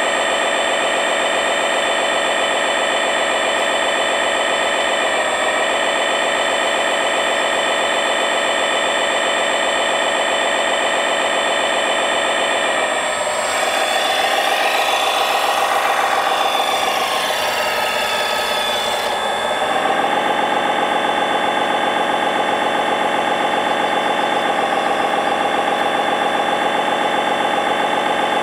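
Radio-controlled scale construction machines and trucks running: a steady engine-like drone with a whine. From about 13 to 19 seconds a higher hissing whine rises over it, then drops away.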